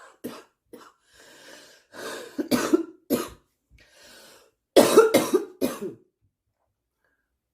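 A girl coughing in bouts: single coughs, then a pair, then a quick run of about four harder coughs, with softer breaths drawn between them. It stops about six seconds in.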